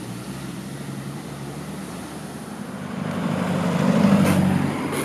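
A car drives past close by, its engine and tyre noise swelling to a peak and fading away, over a steady low hum.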